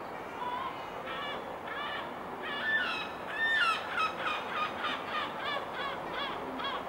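A bird calling over a steady background hum. The calls are faint at first. About halfway through come a few louder drawn-out calls, then a quick run of short yelping calls about three a second that stops near the end.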